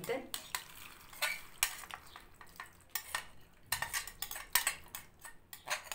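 A knife scraping and tapping on a plate as washed red lentils are pushed off it into a stainless steel pot of water: a run of quick, irregular clicks and scrapes.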